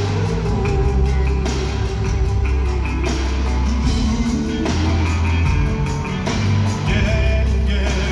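Live R&B band music played loud, with a heavy steady bass line under gliding melodic lines.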